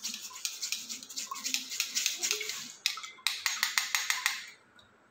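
A metal spoon scraping and pressing wet banana peels in a stainless-steel mesh strainer over a steel bowl, in quick repeated strokes that squeeze the liquid through. It pauses briefly about three seconds in and stops about four and a half seconds in.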